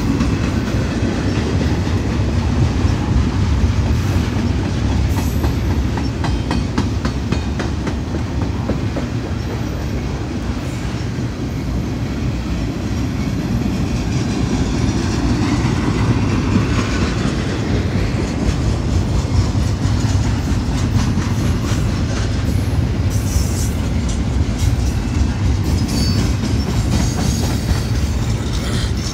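Double-stack intermodal container train's well cars rolling past close by: a steady rumble of steel wheels on rail, with the clickety-clack of wheels passing over rail joints.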